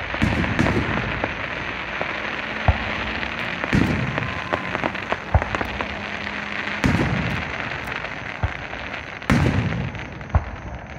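Fireworks going off: four deep booms about every three seconds, with sharper pops in between.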